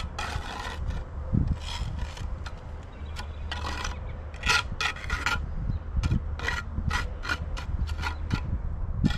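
Steel mason's trowel scraping excess wet concrete off the top of a concrete block wall around a freshly set anchor bolt. The trowel goes in a run of short strokes, roughly two a second, more frequent in the second half.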